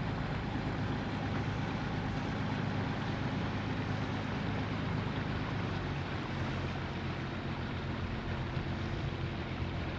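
Fishing boat's engine running steadily under way, with a low hum and a hiss of wind and water over it.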